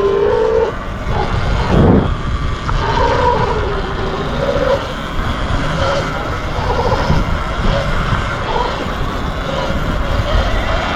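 Heavy wind rumble on the microphone, with the wavering, rising and falling drone of jet ski engines running on the lake.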